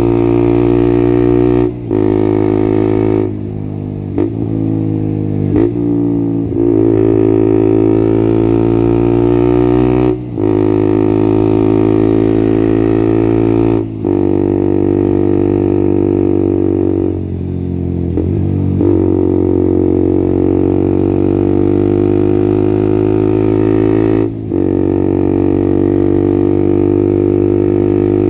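Straight-piped KTM Duke 125 single-cylinder four-stroke, with no catalytic converter or dB killer, droning at steady high revs. The revs cut out briefly four times and twice sag and climb back up.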